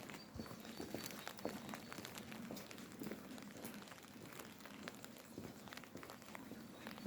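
Light rain pattering in scattered, irregular drops, with footsteps on wet pavement.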